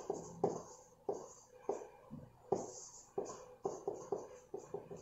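A stylus writing on a 58-inch electronic writing board: irregular sharp taps and short scratchy strokes, about two or three a second, as characters and an arrow are written.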